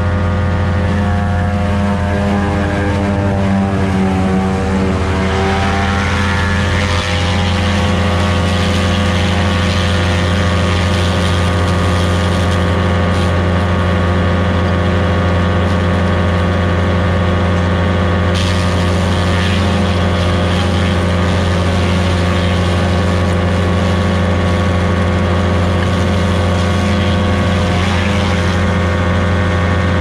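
A farm engine powering corn-harvest machinery runs steadily; its pitch sags for a few seconds about four seconds in, as if it is taking a load, then recovers.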